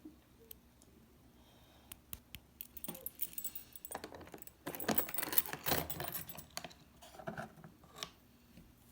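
Small keys and latches of a Melissa & Doug wooden doorbell house toy being handled: a run of light clicks, rattles and jangling, loudest about five to six seconds in.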